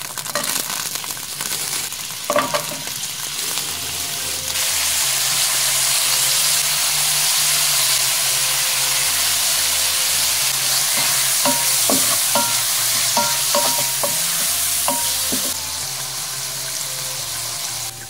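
Thin slices of beef brisket sizzling as they fry in hot oil in a nonstick pan, with a steady hiss that grows louder about four seconds in and eases off near the end. A few light knocks sound in the second half.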